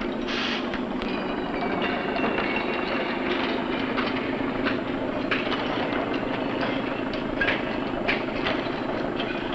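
Railway freight wagons moving in a rail yard: a steady rumble with metal wheels squealing on the rails, broken by scattered metallic clanks and knocks.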